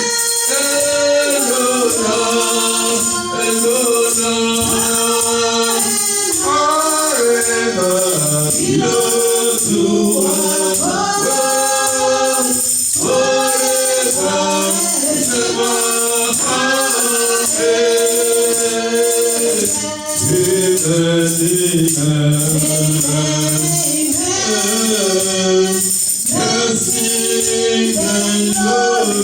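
A choir singing a gospel song with tambourine keeping a steady beat.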